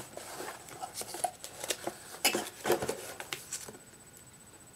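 Paper and cardboard packaging being handled as items are taken out of a shipping box: irregular rustles, scrapes and light clicks that stop about three and a half seconds in.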